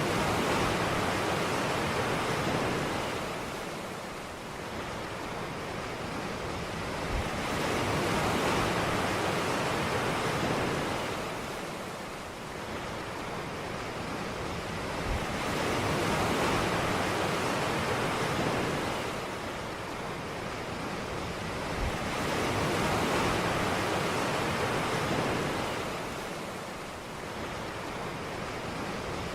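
Ocean surf breaking on a beach. The wash of the waves swells and falls back about every seven to eight seconds.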